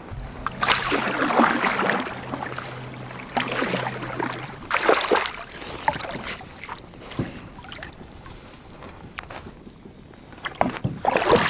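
Water splashing beside a canoe as a hooked fish thrashes at the surface, in several irregular bursts.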